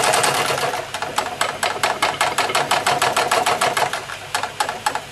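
Wilesco D32 model steam engine running with a rapid, even chuffing beat. About a second in the beat slows to roughly five or six a second and grows quieter as the steam valve is turned down.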